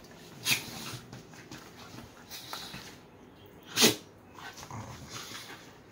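Dogs at play, one giving two short, sharp barks: one about half a second in and a louder one just before four seconds in, with quieter dog sounds between.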